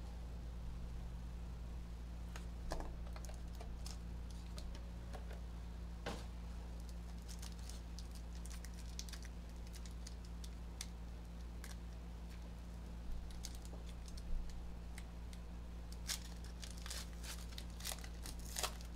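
Foil trading-card pack being handled and torn open, with cards sliding and flicking out, heard as scattered small crinkles and clicks that bunch up near the end. A steady low hum runs underneath.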